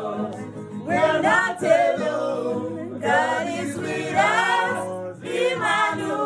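A gospel choir singing a cappella in harmony, in sustained sung phrases with short breaks between them.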